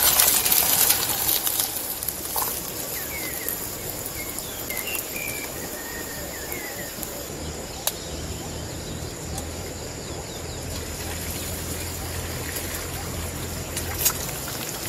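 Frying pan sizzling at first, then open-air ambience with small birds giving short chirps, a steady low hum and a couple of sharp taps.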